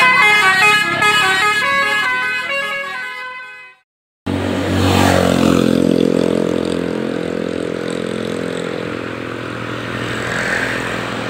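Bus telolet 'basuri' multi-tone horn playing a stepping melody, which fades out a few seconds in. After a short break, a steady low vehicle rumble follows, with a downward slide in pitch at its start.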